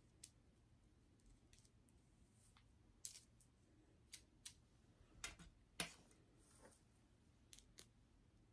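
Near silence with scattered short, faint clicks and rustles from fingers with long nails handling hair and tape-in hair extensions at the scalp; the loudest click comes about six seconds in.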